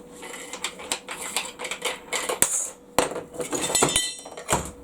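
Steel parts and tools clinking and clattering as they are handled. There are sharp knocks about two and a half and three seconds in, and a ringing metallic rattle near four seconds.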